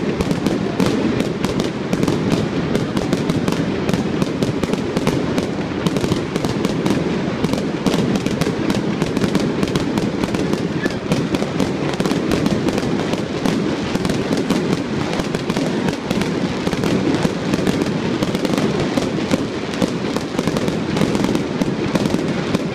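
Fireworks going off in a dense, continuous stream of crackles and pops, without a pause.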